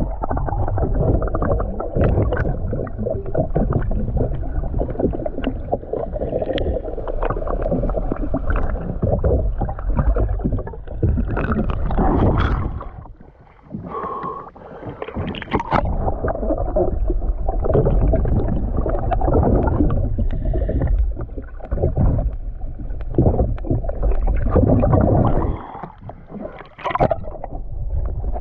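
Sea water sloshing and gurgling, heard muffled from underwater and at the surface in uneven surges, with a brief quieter dip about halfway through.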